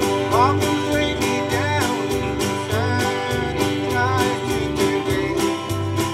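Live country-gospel band playing: strummed acoustic guitar over a steady bass and beat, with a melody line that slides up and down between notes several times.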